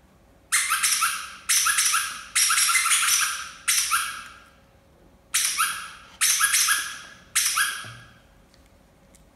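A toy's sound, a high, noisy squawk repeated seven times in sharp-starting bursts, four and then three after a short pause, each fading over about a second.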